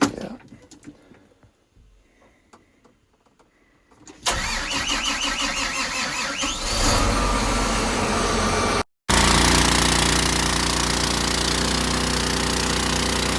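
A few faint clicks in near silence, then about four seconds in a vehicle engine is cranked and starts, rising once and then running steadily. Its sound cuts out for a moment partway through before the steady running resumes.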